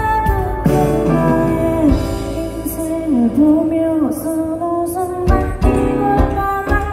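A woman singing into a microphone, backed by a live band, heard from the crowd through a festival's big outdoor sound system.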